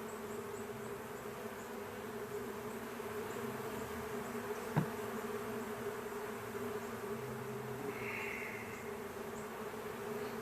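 Honey bees buzzing steadily around an open hive: a low, even wing hum, with a single sharp click about halfway and a short hiss near the end.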